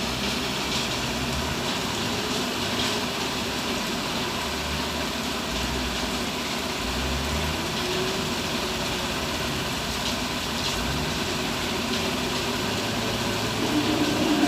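Diesel engine of heavy earthmoving machinery running steadily, picking up in level and pitch near the end.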